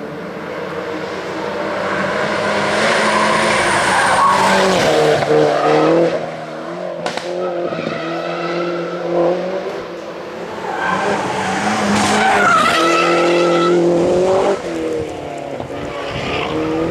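MINI Cooper S John Cooper Works race car's engine revving hard through tight bends, its pitch climbing and falling with gear changes and lifts off the throttle. It is loudest twice and cuts back sharply after each.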